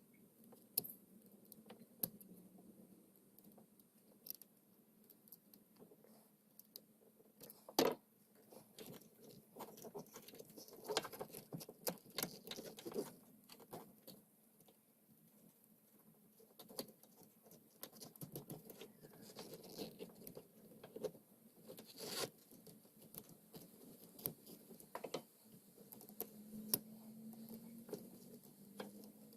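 Small, scattered clicks, taps and scrapes of hand tools and parts being handled while a replacement starter solenoid is fitted on an ATV. Two sharper clicks stand out, about eight seconds in and about twenty-two seconds in.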